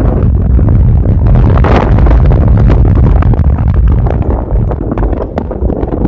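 Wind buffeting an action camera's microphone in paraglider flight: a loud low rumble with irregular flutter, swelling in a stronger gust about two seconds in.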